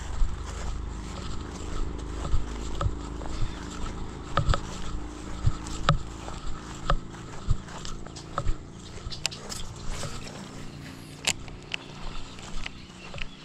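Footsteps of a person walking on grass at a steady pace, each step a short thud or click.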